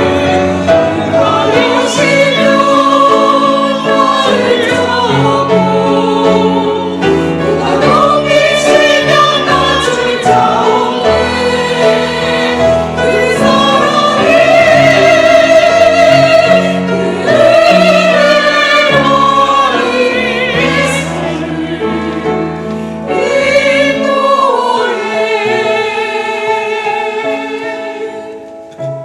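Church choir singing a hymn with piano accompaniment, the voices holding long phrases and growing quieter near the end.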